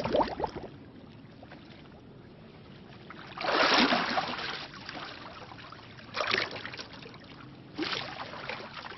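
Animated water sound effect: water splashing and swirling as a character surfaces from a lake, in a few bursts. The loudest comes about three and a half seconds in, with shorter splashes near six and eight seconds.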